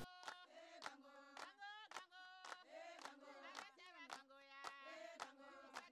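Very faint background music: voices singing together over a steady clicking beat, about two beats a second.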